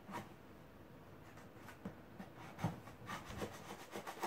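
Scissors cutting through a corrugated cardboard box: faint, irregular scraping snips, the loudest a little past halfway.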